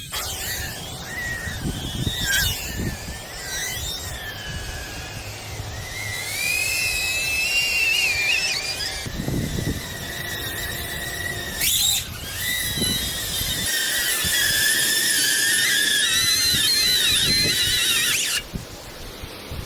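DJI Avata FPV drone's propellers and motors making a high-pitched whine that rises and falls in pitch as the throttle changes, with low buffeting thumps underneath. The whine cuts off suddenly near the end.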